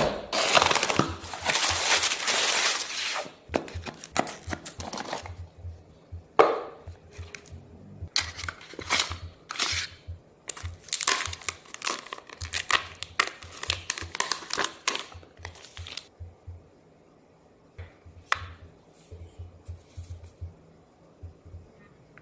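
Phone packaging being unwrapped by hand: tearing and crinkling for about three seconds, then shorter bursts of rustling and handling. After about 16 seconds it thins out to a few faint clicks and rustles.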